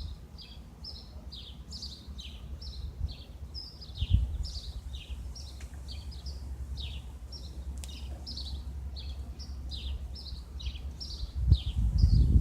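A bird calling over and over: short, high, downward-sliding chirps, two or three a second, over a low steady rumble that swells into loud low thumps near the end.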